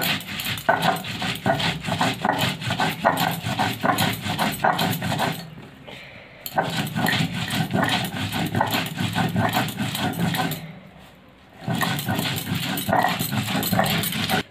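Stone roller grinding coriander leaves and salt into a paste on a flat sil grinding stone, stone rasping on stone in quick back-and-forth strokes. The grinding pauses twice for about a second, a little before halfway and about three-quarters through.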